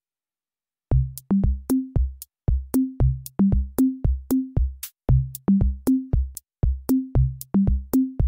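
Background music: a steady electronic drum-machine beat of punchy bass notes that step up in pitch in a repeating pattern, starting about a second in.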